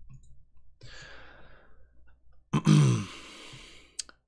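A man breathes in softly, then lets out a long voiced sigh that falls in pitch and trails off. A single sharp click comes near the end.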